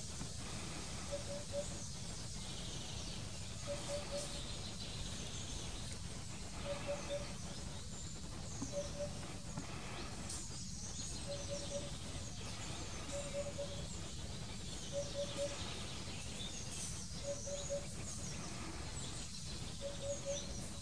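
Eurasian hoopoe calling its low "oop-oop-oop": three quick, evenly spaced hoots, repeated about nine times at roughly two-second intervals. Other small birds chirp faintly and high in the background.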